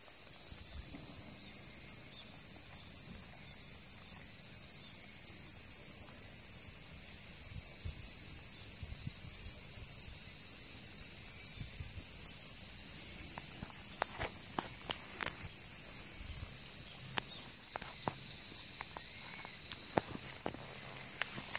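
Steady high-pitched drone of summer insects, with a few light taps and rustles in the last several seconds.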